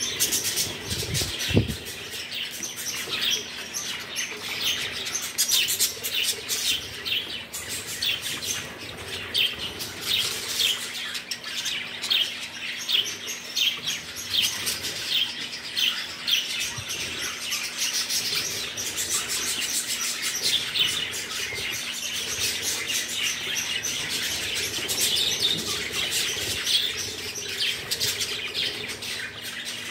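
A flock of budgerigars chattering while they feed, a dense, unbroken stream of rapid high chirps and warbles. A single low thump comes about a second and a half in.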